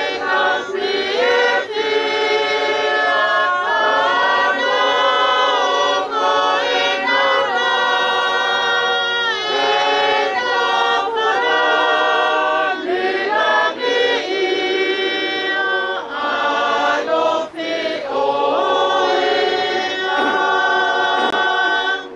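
A group of voices singing a hymn together in harmony, with long held notes; the singing stops right at the end.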